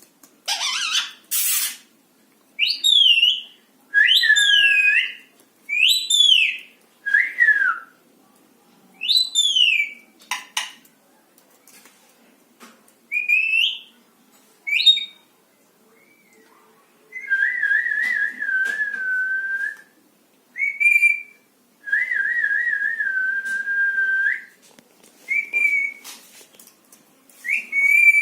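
Pet parrot whistling: a string of short whistled notes that slide up and down, then two longer warbling whistles of a few seconds each, and a few short whistles near the end.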